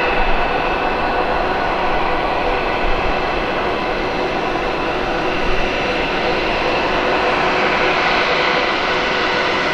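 Airbus A320-232's IAE V2500 turbofan engines running at taxi power as the airliner taxis, a steady jet whine with several held tones over a rushing hiss. The whine grows a little brighter near the end.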